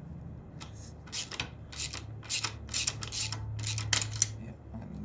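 Metal parts and hand tools clicking and scraping as they are handled, about a dozen short sharp clicks in an irregular run, over a steady low hum.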